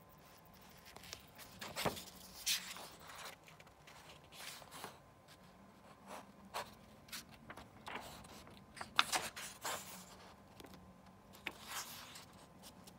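Pages of a book being handled and turned by hand, with irregular soft paper rustles and brushing swishes and a few small taps. The sharpest swish comes about nine seconds in.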